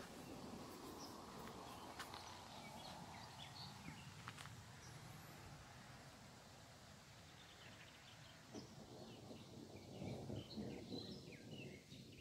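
Faint outdoor ambience: scattered short bird chirps, more of them in the second half, over a low, even background noise, with a couple of soft clicks early on.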